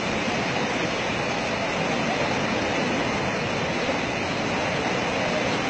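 Steady rushing of churning, foaming water in a flooded mining pond.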